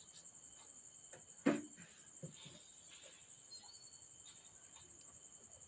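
Steady high-pitched chirring of a cricket, with one sharp knock about a second and a half in and a few faint handling sounds as fabric is arranged at a sewing machine.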